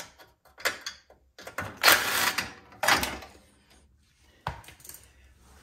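Snowblower engine parts and hand tools being handled during disassembly: a run of clicks and knocks, with a longer clatter about two seconds in and another a second later, then a single knock.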